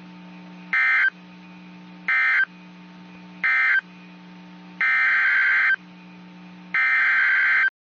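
NOAA Weather Radio digital data tones (SAME/EAS coding): five bursts of harsh warbling tones, three short ones followed by two longer ones, over a steady low hum. Data bursts right after the spoken text are the coded end-of-message signal that closes the warning.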